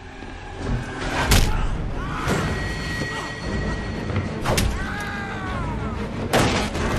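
Four heavy blows thud into a man in a film fight, about a second or two apart, with pitched, wavering cries or score between them.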